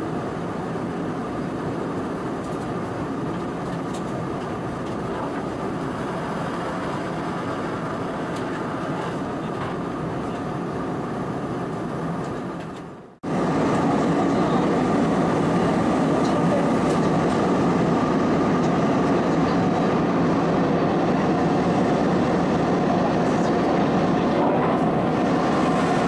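Steady cabin noise of an Airbus A320-216 in cruise, heard from inside the cabin: a dense, even rush of airflow and drone from its CFM56-5B turbofans. About halfway through it fades out, then comes back suddenly and somewhat louder.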